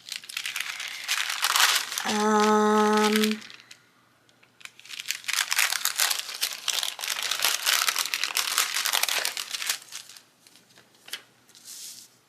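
Sticker sheets and paper crinkling and rustling as they are handled, in two long stretches with a few short rustles near the end. About two seconds in, a steady pitched tone lasting just over a second sounds over the rustling.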